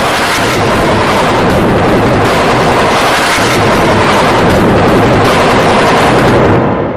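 Loud, heavily distorted edited audio, a dense harsh noise filling every pitch from deep bass to hiss with no clear tune, beginning to fade out near the end.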